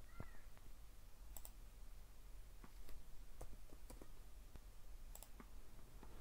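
Faint computer keyboard keystrokes and mouse clicks: about a dozen irregular, scattered clicks.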